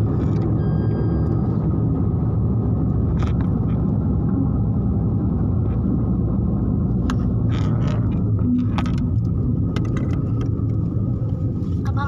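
Steady low rumble of a car's engine and tyres heard from inside the cabin while driving, with a few light clicks or rattles in the second half.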